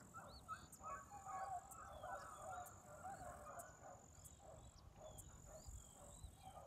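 A pack of beagles baying faintly, many short overlapping calls, as the hounds run a rabbit's trail.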